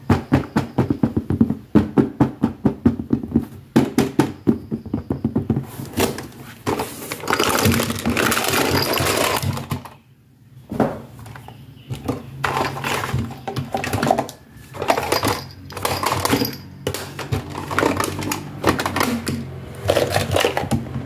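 Quick runs of finger taps on a fabric-covered toy box, then rustling and scraping. After a short break about ten seconds in, the clicks and clatter of small hard plastic toy accessories (purses, compact cases, a hand mirror) being handled and set down.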